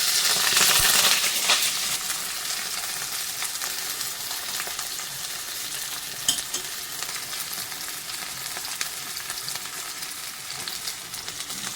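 Onion frying in hot oil in a pan, sizzling loudest in the first second or so and then settling to a steady sizzle, with light clicks and scrapes of a spatula stirring.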